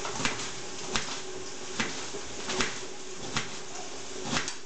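Kitchen knife chopping fresh spinach leaves on a cutting board: about six sharp chops, roughly one a second.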